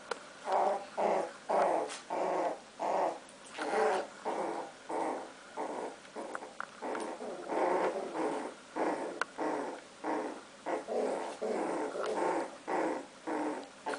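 Puppies growling as they play-fight, a long run of short growls at about two a second, with a few sharp clicks among them.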